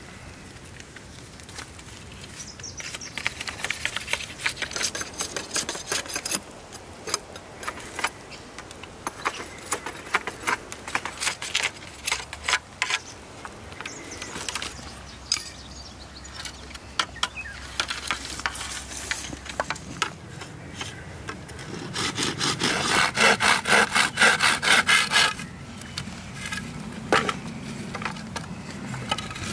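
Dry reed stalks being scraped along with a curved knife blade, a string of short scraping strokes. About twenty-two seconds in, a louder, even run of rapid back-and-forth sawing strokes lasts about three seconds, cutting through a reed stalk, and starts again near the end.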